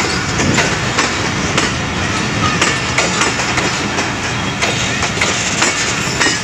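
Pakistan Express passenger coaches passing close by at speed, a steady rumble with the wheels clattering over the rail joints in a quick, uneven run of clicks.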